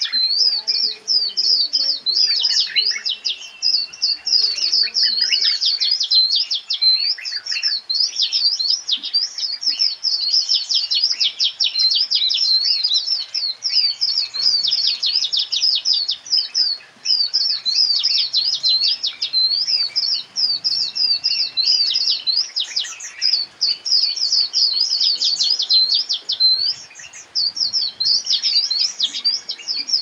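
A dense chorus of many small birds chirping continuously, with quick high chirps tumbling over one another.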